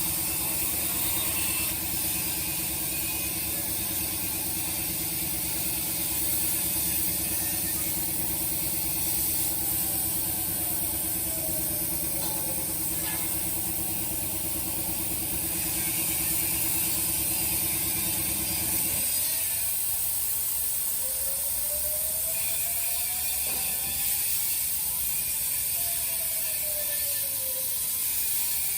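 CNC plasma cutting machine at work on thin steel plate, with a steady high hiss throughout. A low mechanical hum stops suddenly about two-thirds of the way in. Several whines rise and fall in pitch as the torch moves.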